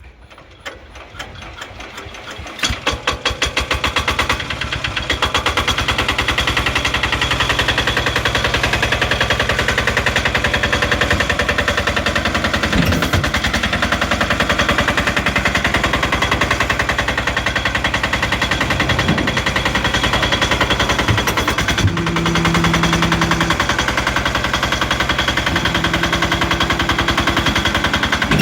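Engine of a YFW2000DE steel-crawler dump carrier starting up: uneven firing at first that picks up over the first few seconds, then running steadily with a rapid, even knocking beat.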